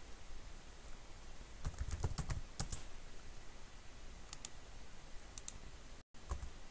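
Computer keyboard typing: a quick run of keystrokes about two seconds in, then a few single key clicks. The sound drops out completely for a split second near the end.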